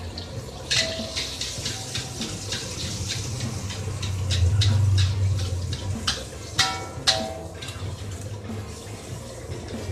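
An egg sizzling in hot oil in a steel wok, with repeated scrapes and taps of a metal spatula against the wok as the egg is broken up and stirred. Two louder ringing clanks come a little past the middle.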